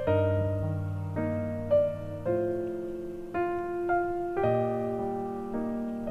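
Background piano music: slow single notes and chords, each struck and left to ring out and fade, about one a second.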